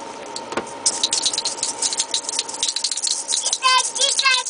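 Plastic baby rattle shaken rapidly, a quick dense rattling that starts about a second in. Near the end, short pitched sounds repeat about twice a second over the rattling.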